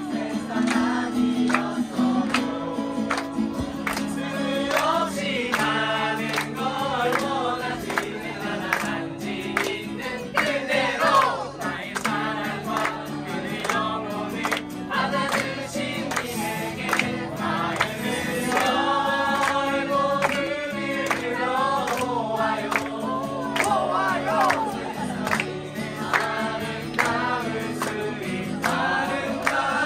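A crowd of young people singing a song together in chorus, with a guitar strummed along and hands clapping.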